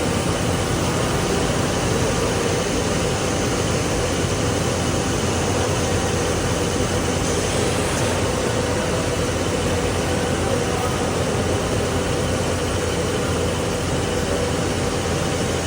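CNC fabric cutting machine running steadily, a constant machine noise with a faint steady hum.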